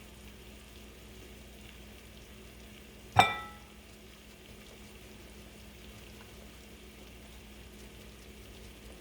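One sharp, ringing clink about three seconds in, like a hard utensil or jar striking a bowl or dish, over a faint steady hiss and hum.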